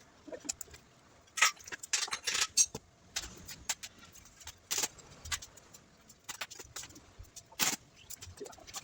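Metal tools and parts clinking and clattering as they are handled, in irregular clusters of sharp clicks, the loudest about a second and a half in, around two and a half seconds, near five seconds and about three-quarters of the way through.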